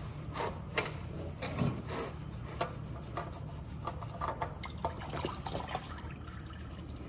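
Engine oil trickling and dripping from a loosened spin-on oil filter into a plastic drain pan, with irregular clicks and taps as the filter is turned off by hand and taken away. A steady low hum runs underneath.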